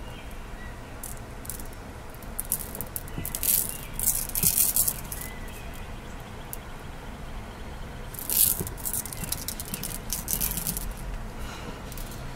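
A handful of 8 mm carnelian gemstone round beads clicking and rattling against one another in cupped hands, in two clusters of quick clicks: about three seconds in, and again after about eight seconds as they are spilled onto the table.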